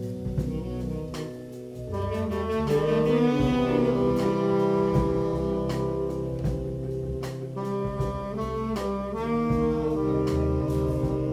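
Live jazz from a section of tenor saxophones playing held, harmonised chords together over a drum kit with cymbal hits. The horns swell louder about two seconds in.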